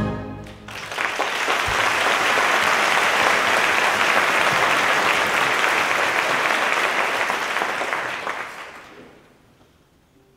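Audience applauding as the orchestral music stops, a dense steady clapping that dies away over the last couple of seconds.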